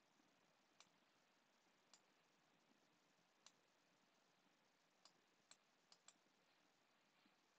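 Near silence: faint room tone with about seven small, sharp clicks at irregular intervals, a few of them close together near the middle.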